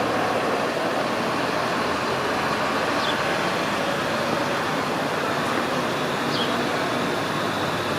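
Steady rain falling, an even hiss with no break. Two short high chirps cut through it about three seconds in and again near six and a half seconds.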